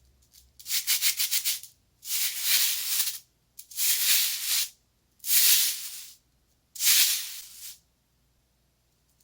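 Five bursts of hissing, rattling crackle, each about a second long with short gaps between. The first breaks into quick ticks. This is sound-effect material for the continuous crackling shower of a firework burst.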